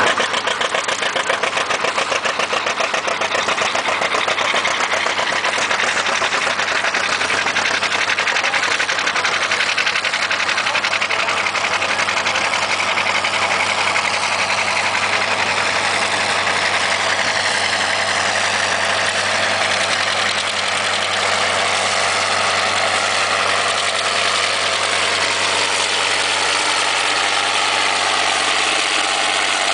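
John Deere 4320's turbocharged six-cylinder diesel engine running steadily under load as the tractor pulls a plow, with some rise and fall in pitch in the later part.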